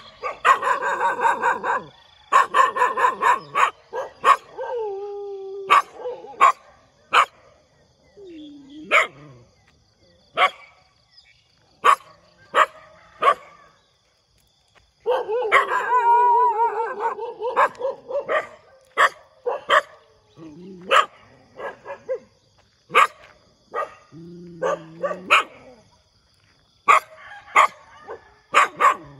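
A dog barking again and again, with single sharp barks and quick runs of barks, the densest near the start and in the middle. A few longer calls drop in pitch.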